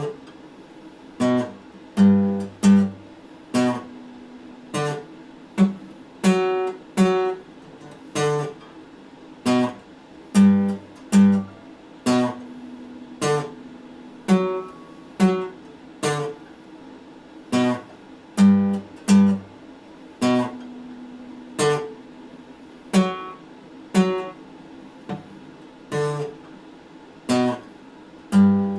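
Steel-string acoustic guitar played slowly: single picked notes and small chords struck one at a time with short gaps, about one or two a second, each dying away quickly.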